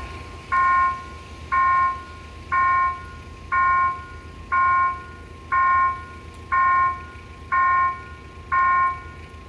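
Level-crossing warning bell sounding about once a second, each stroke a short ringing tone that cuts off sharply, while the barriers are down and the red lights flash.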